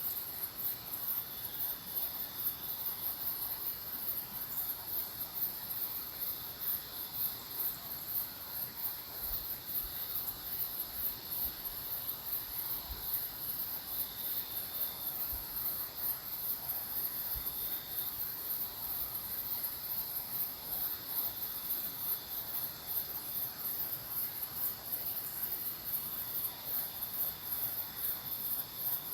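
Chorus of night insects, crickets or katydids: a steady, rapidly pulsing, very high-pitched trill with a lower continuous chirring beneath it.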